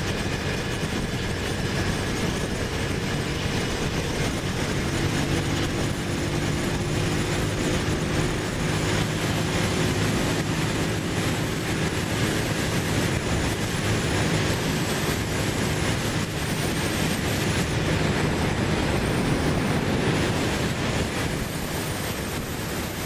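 Motorcycle cruising at a steady freeway speed: a constant rush of wind over the microphone with the engine's steady drone underneath.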